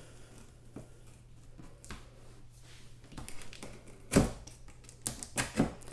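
Packing tape on a cardboard box being slit with a small plastic cutting tool: faint scraping along the seam, then a loud crackle of tape and cardboard about four seconds in and a few sharp clicks near the end.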